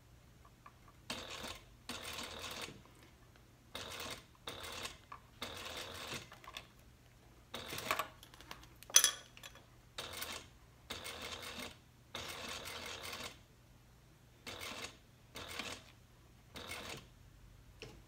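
Juki sewing machine stitching through vinyl in a dozen or so short start-stop runs, each half a second to a second long, as the seam across the strap connector is sewn and backtacked. A sharp click about nine seconds in.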